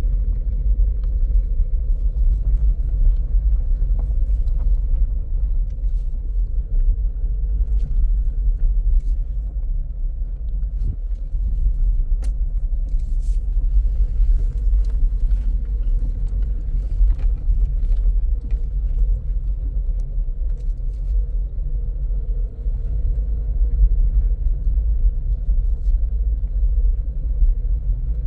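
Car driving over a rough dirt track, heard from inside the cabin: a steady low rumble of engine and tyres, with scattered light clicks and rattles.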